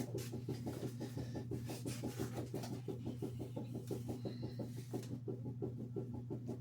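A cloth strip loaded with metal polish being worked quickly back and forth around a crankshaft journal, shoeshine-style: an even rubbing rhythm of about six strokes a second over a steady low hum.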